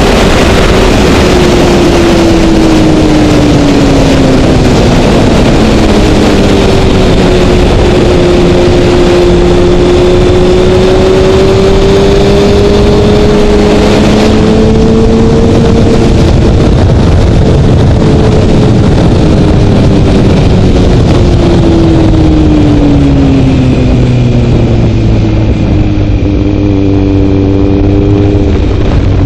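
2012 Kawasaki ZX-6R's inline-four engine running on track under heavy wind rush on the helmet microphone. Its pitch sinks over the first few seconds, holds through the middle, then drops again and settles low, while the wind hiss thins in the second half as the bike slows.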